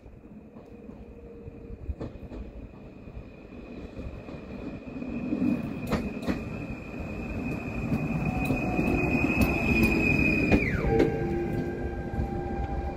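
Stadler FLIRT electric multiple unit (PKP Intercity ED160) pulling in and running past at low speed: wheels rumbling on the rails and growing louder, with a high electric whine from the train that drops abruptly to a much lower pitch near the end.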